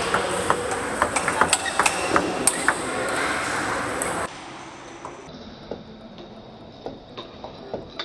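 Table tennis rally: quick sharp clicks of the ball striking the bats and bouncing on the table, one bat faced with the Sueke Phantom II Attack commercial rubber being tested. A loud steady hall noise drops away about halfway through while the hits go on, fewer and quieter.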